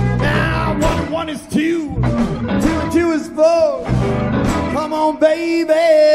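Live blues band playing: a lead line of bent, sliding notes over bass and drums.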